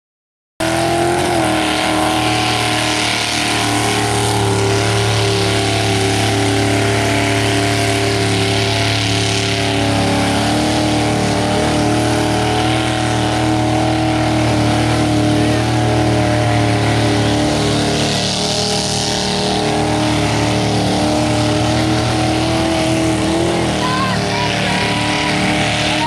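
Big mud truck engine running hard at high revs as the truck drives through a mud pit, holding a fairly steady pitch with a few small shifts. It cuts in just after the start.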